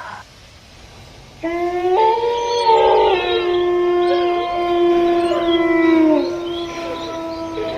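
Several dogs howling together in long, overlapping drawn-out howls, starting about a second and a half in, with some howls sliding down in pitch near the end.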